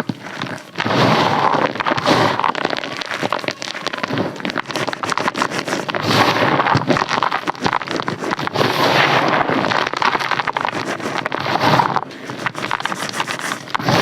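Close-up ASMR crunching: a dense run of crisp crackles, easing for a moment near the end before picking up again.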